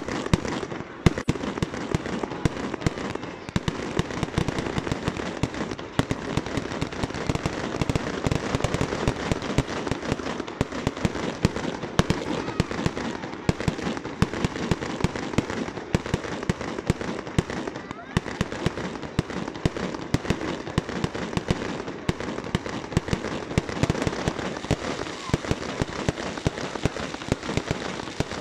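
Fireworks display: aerial fireworks launched one after another from the ground and bursting overhead. A dense, unbroken stream of bangs runs throughout.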